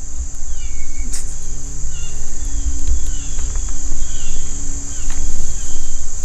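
Crickets chirping in a steady, high-pitched chorus, with scattered short high chirps over it. A loud, uneven low rumble runs underneath.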